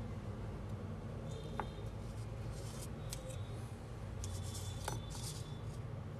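Light clicks and scraping of a small metal hand tool and a phone motherboard being handled, in a few short clusters, over a steady low hum.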